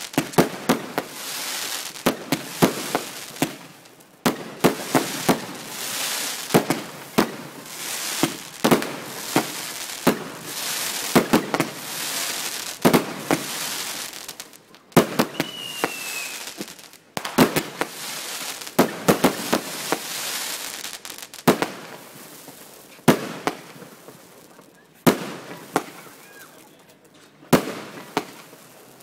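Aerial fireworks bursting: a long run of sharp bangs coming in irregular clusters, several close together at a time, with crackling and hissing between them. A brief falling whistle sounds about halfway through.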